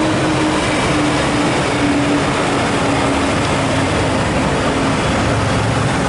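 International 7600 concrete mixer truck driving away through an intersection, its diesel engine a steady drone sliding slowly lower, over the rush of passing cars' tyres and engines.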